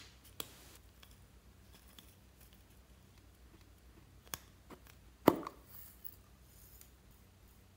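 Plastic surprise egg being handled with a few light clicks and taps, then snapping open with one sharp pop about five seconds in.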